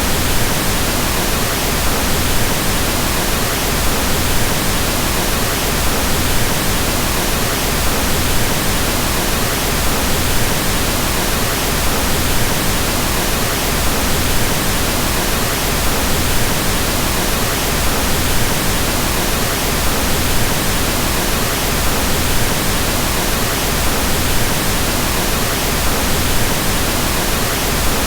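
Synthetic pink noise: a steady, even hiss with more weight in the lows, constant in level.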